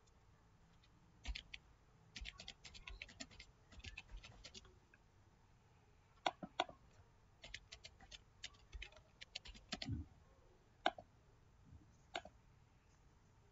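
Computer keyboard typing, faint, in quick runs of keystrokes, followed by a few single mouse clicks near the end.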